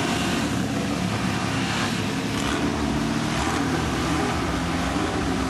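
Engines of small hill-climb race cars revving through a hairpin bend, the engine note rising and falling as they brake and accelerate.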